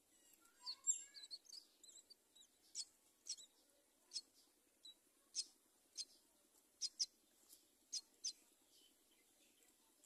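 Myna nestlings begging for food: a quick flurry of high chirps about a second in, then a string of short, sharp, high-pitched calls about every half second.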